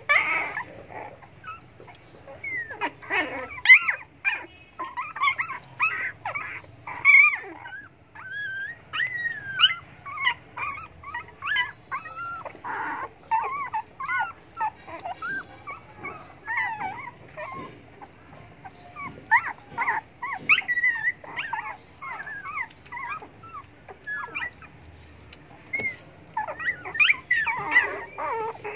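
A litter of young puppies whimpering and squealing without pause: many short, high whines that rise and fall and overlap one another, typical of hungry puppies begging for food.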